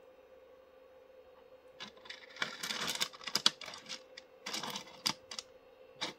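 Pieces of rough opal clicking and clattering together as they are handled. Sharp clicks in quick, uneven runs start about two seconds in, with a last short clatter near the end.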